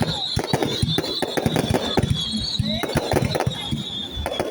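A fireworks display going off: a fast, irregular run of sharp cracks and bangs, over a high, wavering whistle that stops near the end.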